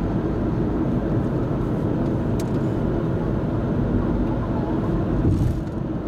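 Car driving at road speed, heard from inside: a steady rumble of engine and tyres on the road, with a couple of brief faint clicks.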